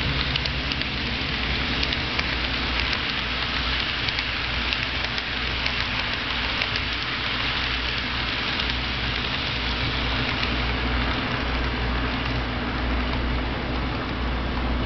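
Model train's wheels clicking and rattling over the track as a long freight consist passes at speed, over a steady low hum and hiss. The clicks thin out in the second half as the last cars go by.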